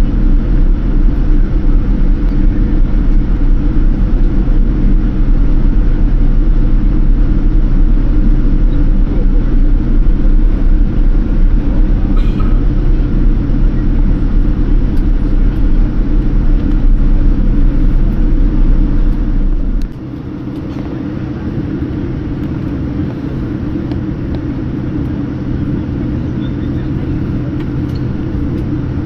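Steady cabin rumble of a Boeing 787-10 on the ground after landing, with a low hum of engines and air systems. The deepest rumble drops away suddenly about twenty seconds in, leaving a quieter steady hum.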